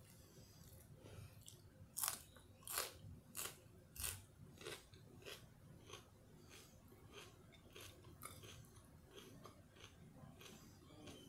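A person chewing food with the lips closed, a sharp click with each chew about every 0.6 s; the chews are loudest about two to four seconds in, then fainter.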